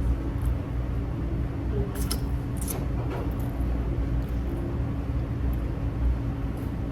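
A steady low hum throughout. About two to three seconds in come a few short crackles, from crab legs being cracked open and eaten.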